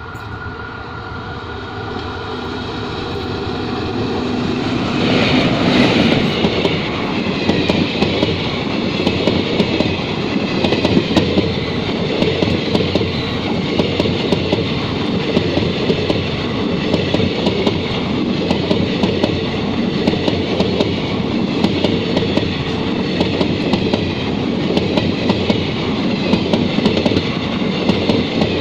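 Passenger train hauled by a WAP-4 electric locomotive passing slowly. The sound grows louder over the first five seconds as the locomotive comes near. Then a steady, dense clatter of coach wheels over the rail joints, with rattling track noise.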